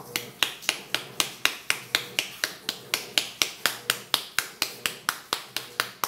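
A hand slapping a bar of homemade laundry soap over and over, about four sharp smacks a second. The crisp smacks show the bar has set hard, though it is not yet fully cured.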